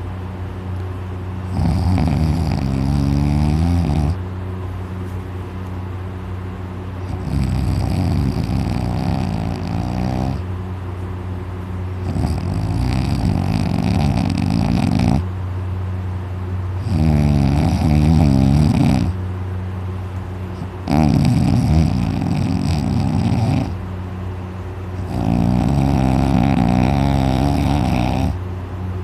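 A young man snoring very loudly in deep sleep: six long snores, each two to three seconds, coming about every four to five seconds over a steady low hum.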